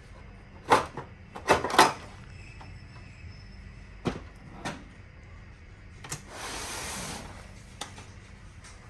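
Clicks, knocks and a brief sliding scrape of hardware being handled, the sound of a hot-plug power supply module being worked out of or into its bay in an HPE ProLiant ML350 Gen10 server. The loudest knocks fall in the first two seconds, and the scrape comes about six seconds in, over a faint steady hum.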